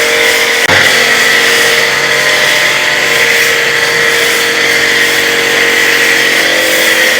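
Electric car pressure washer running steadily while spraying foam through its foam lance: a constant motor hum under a steady spray hiss, with one short knock about a second in.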